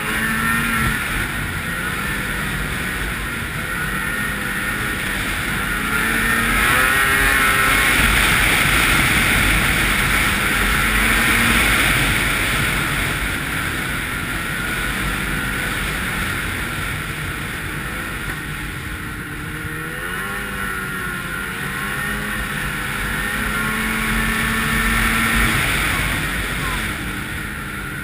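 Ski-Doo 800 snowmobile's two-stroke twin engine running under way with rushing wind, its pitch rising and falling with the throttle. It climbs and gets louder about six seconds in, holds for several seconds, then eases off, with more throttle swings later on.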